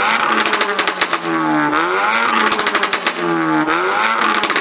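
Car engine revved hard over and over, its pitch dropping and climbing back about every two seconds, with a rapid crackle of exhaust pops on top.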